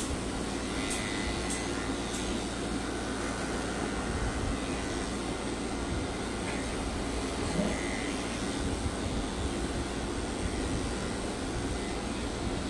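An electric pet-grooming motor running steadily with a constant whir.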